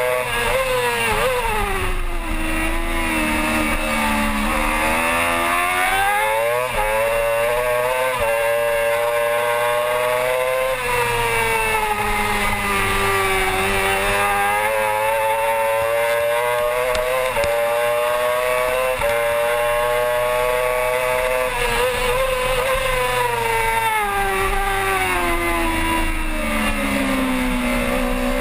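Yamaha R6 600cc inline-four racing engine heard onboard, revving hard through the gears. The pitch falls under braking near the start and again near the end, and climbs in between with short sudden dips at each upshift.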